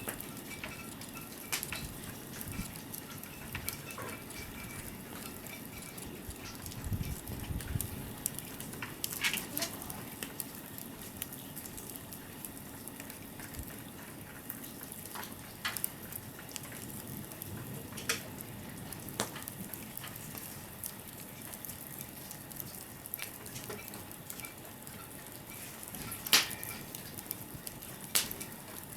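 Wood fire crackling: a steady hiss with irregular sharp pops and snaps, the loudest near the end.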